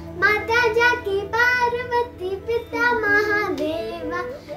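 A child singing solo, held notes with a slight waver, in short phrases, over a faint steady low hum.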